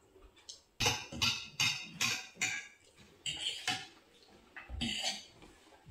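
Eating sounds at a meal: a run of short, crackly crunches and scrapes, two or three a second, broken by brief pauses, from crunchy chatpatte and utensils on plates.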